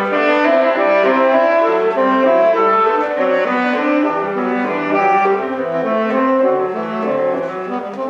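Selmer Series II tenor saxophone playing a quick run of short classical notes, with grand piano accompaniment underneath.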